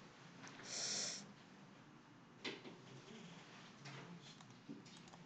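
A short breathy exhale into the microphone about a second in, then a single click about two and a half seconds in, over faint room noise.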